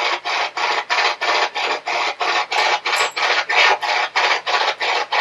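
SB-11 spirit box sweeping through radio frequencies, giving a loud pulsing hiss of static chopped about five times a second as it steps from station to station.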